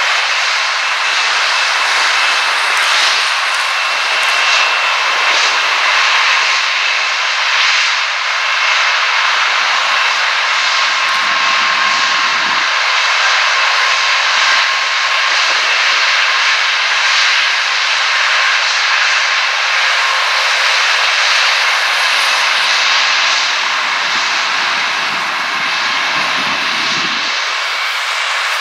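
Antonov An-124's four Progress D-18T turbofan engines running at high power through the takeoff run: a loud, steady jet noise with whining tones. A deeper rumble swells in twice, around the middle and near the end.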